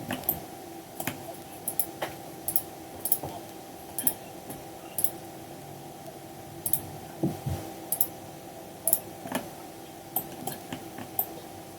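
Irregular clicks of a computer mouse and keyboard, about one or two a second, over a faint steady hum.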